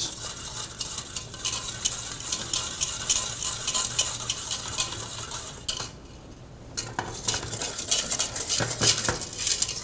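Wire piano whisk beating a thickening roux-and-milk sauce in a metal saucepan, with rapid scraping and clicking against the pan. It stops briefly about six seconds in, then starts again.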